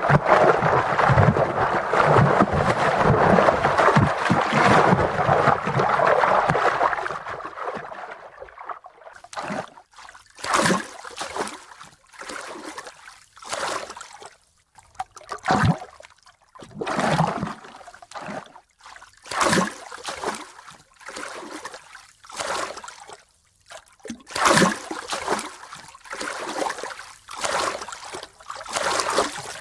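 Water: a dense, continuous rush of water noise for about the first seven seconds, then separate sloshing, gurgling swells every second or two with short quiet gaps between them.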